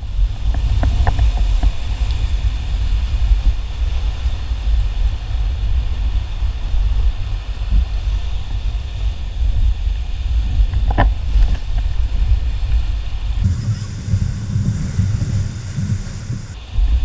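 Whitewater rapids rushing and splashing around a paddle raft, heard through a boat-mounted camera microphone, with heavy low rumbling buffeting from wind and water. A few sharp knocks stand out, the plainest about eleven seconds in.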